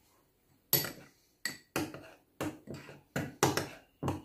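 A spoon clinking against a small ceramic bowl while stirring thick tomato paste: a string of about eight sharp, irregular clinks that starts well under a second in.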